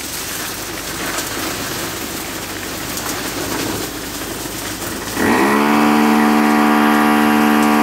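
Steady noise of concrete being pumped through a hose into foundation formwork. About five seconds in, a loud horn cuts in, one long blast at a steady pitch that is still sounding at the end.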